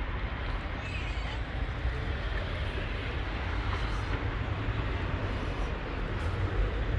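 Steady low outdoor rumble with an even hiss over it, the background noise of an urban street.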